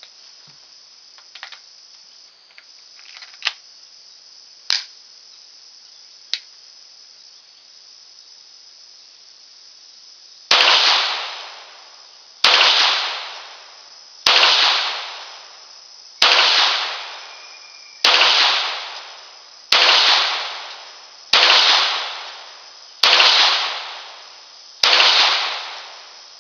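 After a few scattered clicks, nine slow, evenly spaced shots come from a Ruger Mark III 22/45 .22 pistol firing Remington Thunderbolt rounds, just under two seconds apart, each ringing out for over a second. Every round fires and the pistol cycles each time, with no failure to feed or eject.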